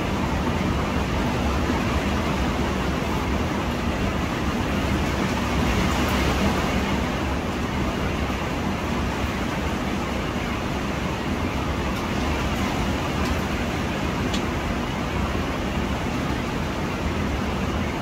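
Xiaomi portable steam iron running as a handheld garment steamer: a steady hiss of steam with a low hum under it, unbroken throughout.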